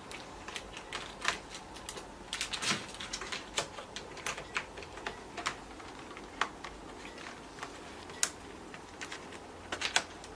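Irregular light clicks and taps of small screws and a screwdriver on a laptop's plastic case while it is being screwed back together, with a few louder clusters of clicks.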